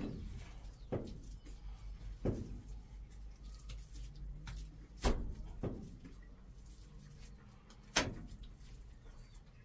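A few sharp knocks at irregular intervals, about a second in, two seconds in, five seconds in (the loudest, with a lighter one just after) and eight seconds in.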